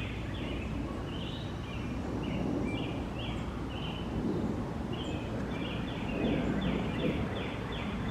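Small birds chirping in quick runs of short, high notes, the runs coming thickest near the end, over a steady low background noise.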